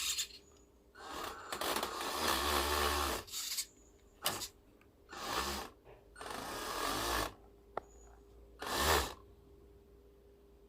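WPL B36 1/16-scale RC truck's electric motor and gearbox run in several short bursts, the longest about two seconds, with a grinding noise, then stop. The grinding comes from a slipping gear, which the owner suspects has stripped teeth.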